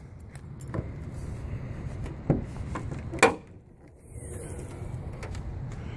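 The hood of a 2012 Hyundai Sonata being unlatched and raised by hand: a few light clicks and one sharper knock about three seconds in, over a steady low background.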